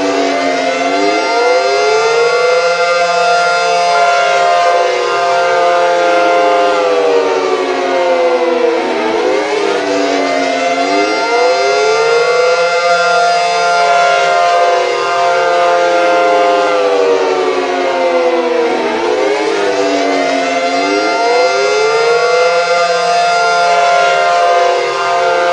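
Synthesized Cold War–era Federal civil defense air raid sirens with 9/12-port rotors, sounding a dual-tone chord. Several overlapping wails rise in pitch, hold the chord for about five seconds, then slide down, repeating about every nine to ten seconds.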